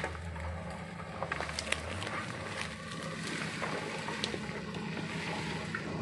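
Off-road 4x4's engine running low and steady as it crawls through dense undergrowth, with scattered snaps and scrapes of brush against the vehicle.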